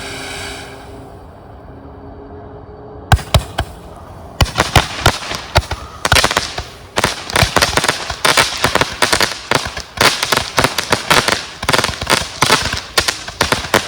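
Firework fountain hissing as it sprays sparks, fading over the first couple of seconds. From about three seconds in it breaks into a rapid, irregular run of sharp pops and crackles as the hybrid fountain's crackling and shooting stage begins.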